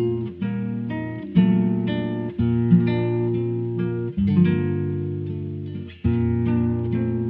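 Background music: an instrumental stretch of a song, guitar chords struck afresh every second or two and left to ring.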